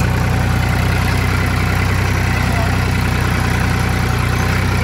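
Massey Ferguson 1035 tractor's three-cylinder diesel engine running steadily under load, heard from the driver's seat.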